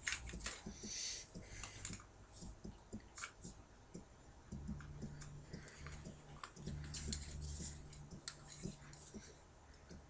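Small plastic clicks and taps of an action figure and its display stand being handled and fitted together. A faint low hum runs for a few seconds in the middle.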